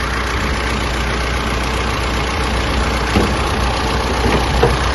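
Mitsubishi L200 Triton pickup engine idling steadily with the hood open.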